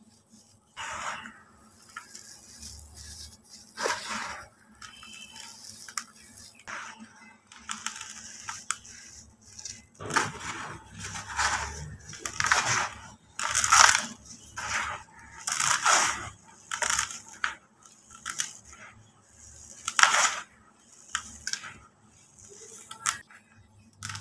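Dry cement powder and crumbled concrete being squeezed, crumbled and sifted by bare hands: irregular grainy crunches and pouring hiss. The crunching grows busier and louder past the middle, with sharp crackling bursts.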